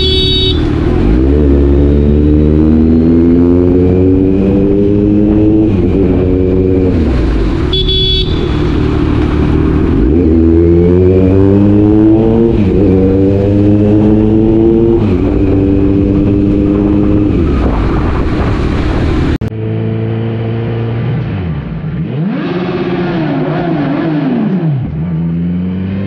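Kawasaki Z900's inline-four engine heard through its exhaust while the bike accelerates through the gears: the pitch climbs, drops back at each upshift, then climbs again. About two-thirds of the way in the sound changes suddenly, and the engine then rises and falls in short revs.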